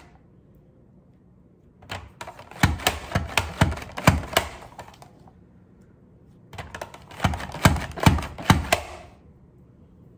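Pampered Chef Rapid Prep Mandoline slicing mushrooms: the food holder is pushed down over the blade again and again, giving quick clacking strokes about two a second. There are two runs of strokes, each a few seconds long, with a pause between them.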